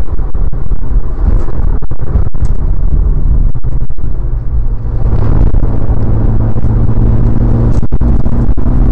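Cabin sound of a Mitsubishi Lancer Evolution IX MR's turbocharged 4G63 four-cylinder on track: a loud, distorted rumble with brief dropouts through the corner, then from about five seconds a steadier engine note that slowly rises in pitch as the car pulls out of the corner.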